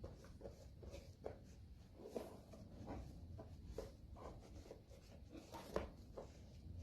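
Faint, irregular scratchy strokes of a black-dyed vegetable-tanned leather pouch being buffed by hand, with one sharper tap near the end.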